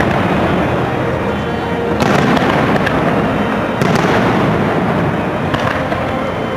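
Aerial fireworks shells bursting in a continuous run of booms and crackling, with sharper reports about two seconds in and again near four seconds.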